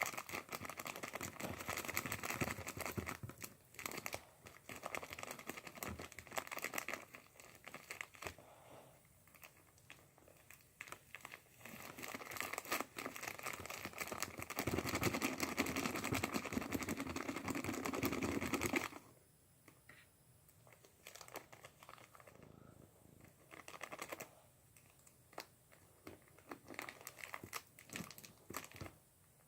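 Plastic crinkling and rustling with many small clicks as confetti glitter is worked into a plastic water bottle. It is dense for roughly the first two-thirds, then drops suddenly to sparse, quieter clicks and rustles.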